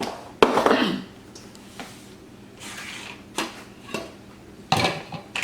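Kitchen clatter of cookware and utensils being handled: a sharp knock about half a second in with a brief rattle after it, then a few lighter knocks and clinks.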